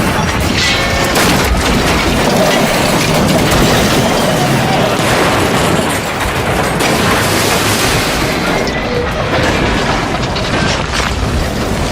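Train-wreck sound effects: a continuous loud mass of crashing and booms, with explosions and no let-up.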